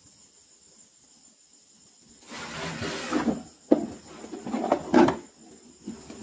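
A pink toy makeup box being handled and slid across a mat. After a quiet start there is a scraping rub about two seconds in, then a sharp knock, then more scraping with a knock around five seconds in.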